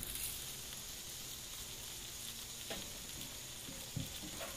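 Bacon-wrapped meatball skewers and stuffed jalapeño peppers sizzling on Grill Grates panels over a gas grill: a steady, faint high hiss with a few small ticks. The fat is cooking off without flaring up.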